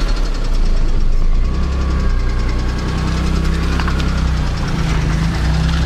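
Small car's engine idling, a steady low drone with a fast light ticking on top, heard from inside the cabin.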